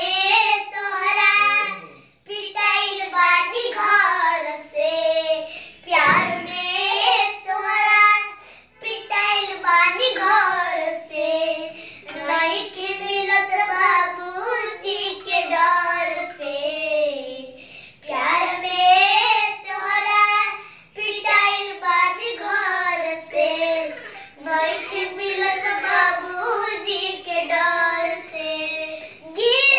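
A young boy singing a Bhojpuri song unaccompanied, in a high voice, in phrases of a few seconds with short breaths between.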